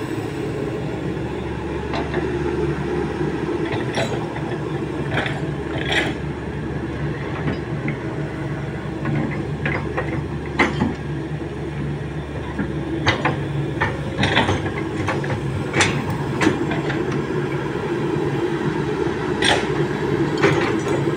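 Kobelco SK200 hydraulic excavator's diesel engine running steadily under load, with sharp metallic clanks and knocks from the bucket and undercarriage scattered throughout.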